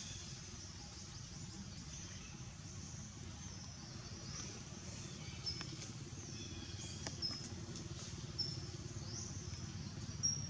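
Birds chirping over a steady low background rumble: short high calls and quick rising notes every second or two, with a few faint clicks.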